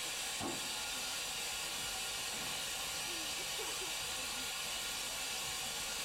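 Steady, even hiss of escaping steam from a steam locomotive.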